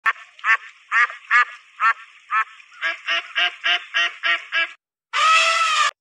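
Duck quacking: a quick series of about a dozen short quacks, then after a brief pause one longer call that cuts off abruptly.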